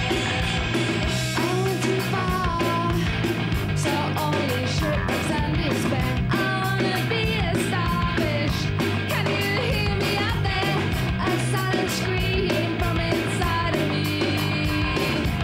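Rock music with a steady drum beat and a singing voice.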